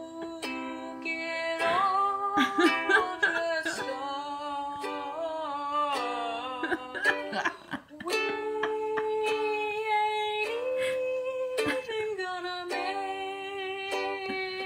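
A woman singing while strumming a ukulele, played back through a tablet's speaker.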